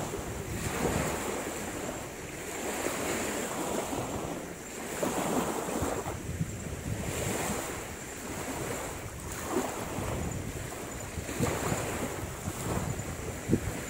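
Small waves washing onto the shore, swelling and falling every second or two, with wind buffeting the microphone and a thin, steady high-pitched whine underneath.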